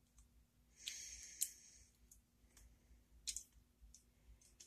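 Faint metal clicks and a short scrape about a second in, as a brass lock cylinder and its pins are handled during disassembly, with another sharp click a little past the middle.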